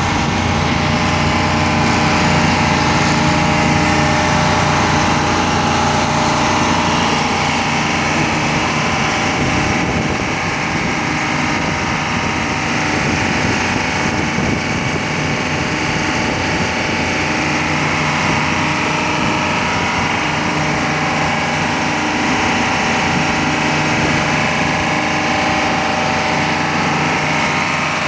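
Ingersoll Rand MW-175 road milling machine's Detroit Diesel engine running steadily, dipping slightly in level about ten seconds in.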